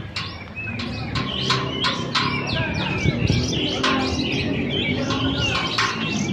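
Many caged competition songbirds chirping and singing at once, a dense tangle of overlapping sharp calls and short whistled phrases.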